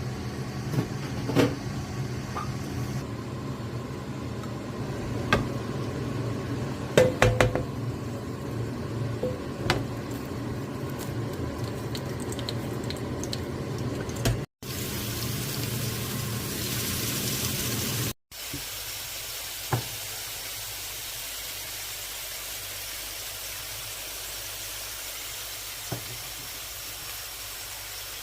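Minced meat kebab sizzling as it fries in a pan, with scattered clicks and taps of a utensil against the pan. The sizzle breaks off for an instant twice partway through.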